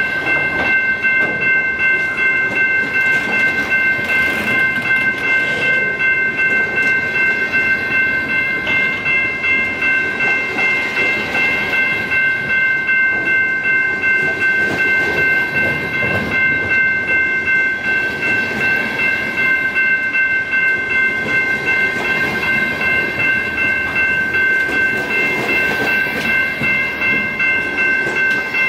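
Freight cars rolling past at a grade crossing, their wheels clacking over the rail joints, with a steady high ringing from the crossing bell. The last car clears near the end, and the ringing carries on.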